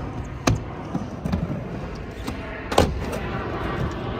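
Skateboard wheels rolling on a mini ramp, with sharp clacks of the board hitting the ramp, the loudest about three seconds in.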